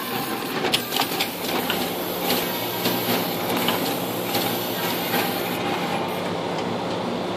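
Surface-mount pick-and-place machine running: irregular sharp clicks over a steady mechanical hum. The clicks die away about five and a half seconds in, leaving the hum.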